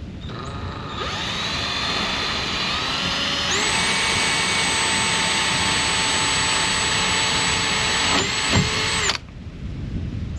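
Power drill running: its motor whine steps up in speed over the first few seconds, holds steady at full speed, dips briefly near the end and cuts off abruptly about nine seconds in. It is drilling a bolt hole for the trolling motor mount.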